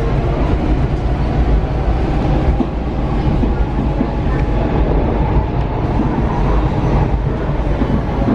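Steady rumble of a moving passenger train, heard from inside the car: wheels running on the rails and the car's body noise.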